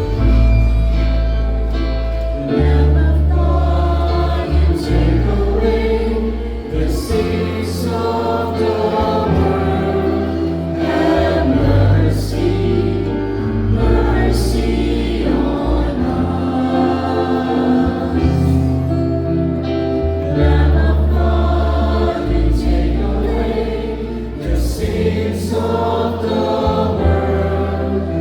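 Church choir singing a hymn with instrumental accompaniment, carried by deep sustained bass notes that change every second or two.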